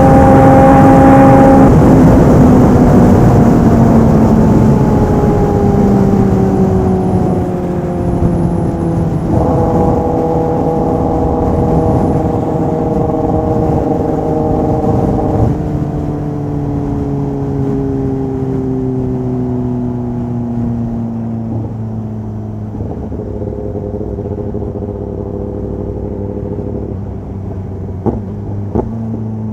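Kawasaki ZX-10R's inline-four engine through a full aftermarket exhaust, held at high revs for a moment, then winding down as the bike slows, the pitch jumping back up at a downshift about nine seconds in. It settles to a low steady run near the end, with a few sharp clicks.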